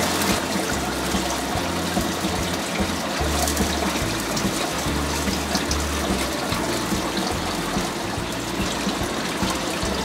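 Water boiling hard in a wok as pork pieces are blanched, a steady bubbling hiss, with background music underneath.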